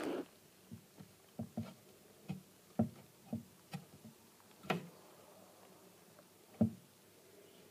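About a dozen soft, low knocks and bumps from handling, unevenly spaced. The strongest come near the start and at about five and six and a half seconds in.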